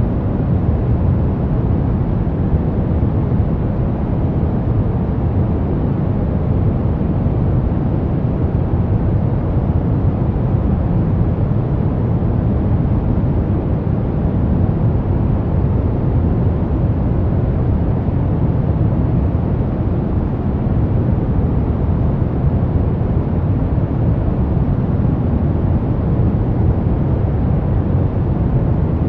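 Brown noise: a steady, even rumbling hiss, strongest in the low end and falling off toward the treble, with no change in level throughout.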